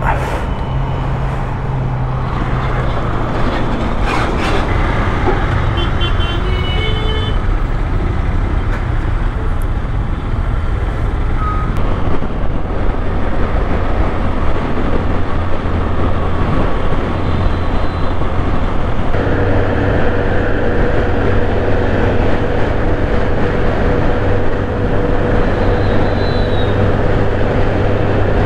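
Motorcycle running at road speed under a steady rush of wind and road noise. The engine note shifts a little about three seconds in and settles on a new steady note about two-thirds of the way through. A few short high beeps come about six seconds in.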